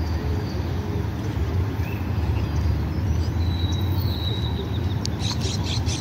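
Steady low rumble of wind on the microphone, with a few short bird chirps about three to four seconds in.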